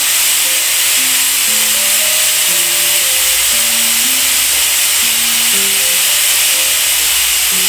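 Stovetop pressure cooker whistling: steam venting from its weight valve in a loud, steady hiss as the chickpeas cook under full pressure. Soft piano music plays underneath.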